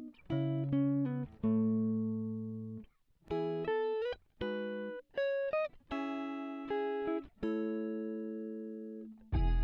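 Background guitar music: single plucked notes and chords, each ringing out and fading, a few of them sliding in pitch.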